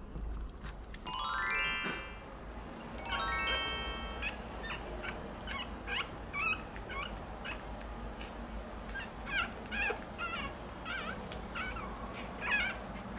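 Two loud pitched sound effects, a quick rising sweep about a second in and a stepped one about three seconds in, then 13-day-old Maltese puppies giving short, high squeaks and whimpers, on and off, while they nurse.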